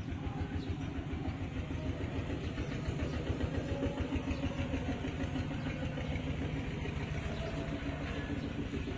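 Tractor diesel engine running steadily at idle.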